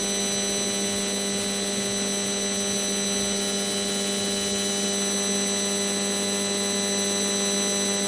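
Signal of a 4G cell tower made audible by an RF meter: a steady buzzing hiss with a low hum and a few thin high tones, unchanging.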